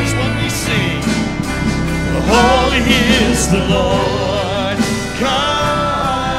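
A worship band plays a song on keyboard, guitars and drums, with voices singing the melody. The singing comes in strongly about two seconds in.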